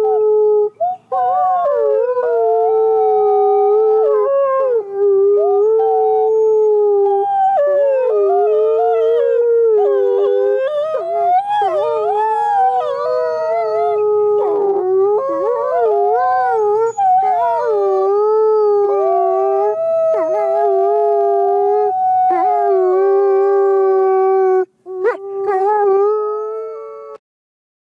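Two gray wolves howling together in chorus: one holds long, steady howls while the other's higher howls waver and slide in pitch over it. The howling stops shortly before the end.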